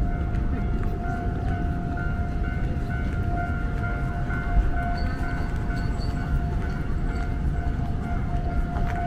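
Heavy machinery running steadily: a low rumble with a constant high whine over it.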